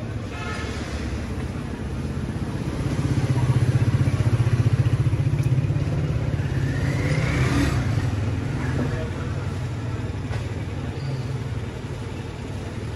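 Motorcycle engine running with a fast, even putter. It swells louder a few seconds in, holds, then eases off, with a brief rising whine just past the middle.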